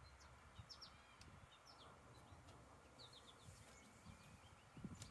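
Near silence outdoors, with faint, short bird chirps in small groups about half a second in, around a second and a half, and about three seconds in.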